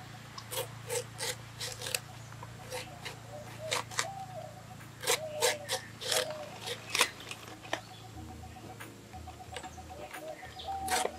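A knife slicing through a raw banana flower in a string of crisp cuts, roughly one or two a second. Hens cluck in the background.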